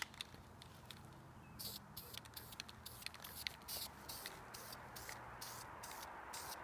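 Aerosol spray-paint can hissing faintly in short, quick bursts, about three a second, as paint is sprayed onto plastic roof-vent covers; the bursts start about a second and a half in.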